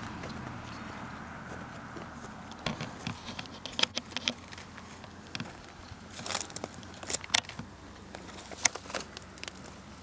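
Irregular sharp clicks and crackles, scattered from a few seconds in, over a faint hum that fades away in the first couple of seconds.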